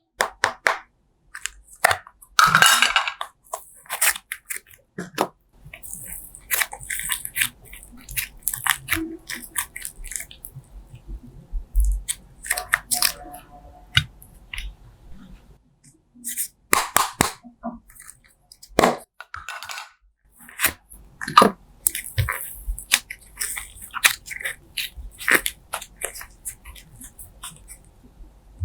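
Slime being squished and worked: irregular wet crackles, clicks and squelchy pops.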